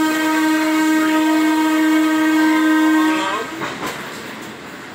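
Train horn sounding one long, steady blast of about three seconds that starts abruptly and bends in pitch as it dies away, over the rumble of rolling rail cars.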